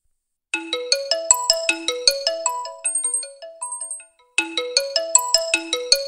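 Smartphone ringtone preview: a fast, bright melody of short notes that fade quickly, starting about half a second in. It breaks off briefly near four seconds and then starts the same phrase over again.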